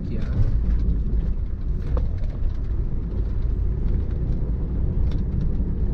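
Engine and road noise of a Hyundai Santro hatchback driving along a rural road, heard from inside the cabin: a steady low rumble.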